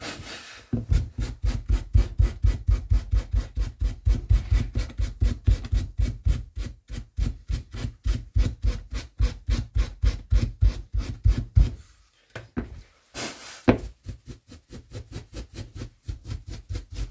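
Rapid, even strokes of a hand tool working a wooden carving, about five a second, each with a dull thud through the board. They stop about 12 seconds in, a scrape and a sharp wooden knock follow, then lighter strokes resume.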